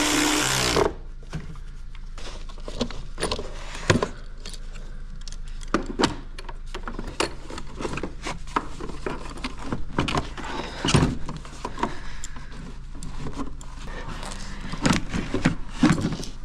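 A cordless ratchet whirs for about a second at the start, then scattered clicks, knocks and metallic clinks as the battery hold-down and terminal hardware are worked loose in the engine bay.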